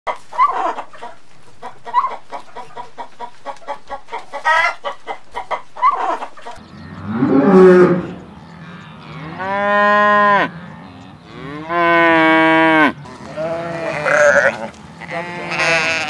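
A hen clucking in a quick run of short notes. Then cattle mooing in long, loud calls, three of them. Near the end come shorter, wavering sheep bleats.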